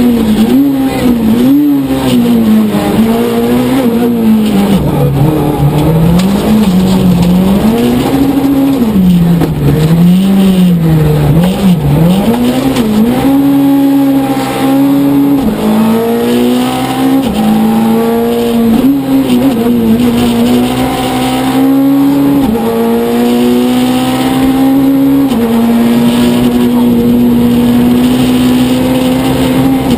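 Citroën C2 rally car's engine heard from inside the cabin, pulling hard. Its pitch rises and falls repeatedly through gear changes and corners for the first half, then holds high and steady with brief dips.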